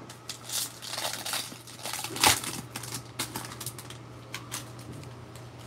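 A Panini Prizm basketball card pack's foil wrapper crinkling and being torn open by hand: a run of irregular crackles, with the loudest rip about two seconds in.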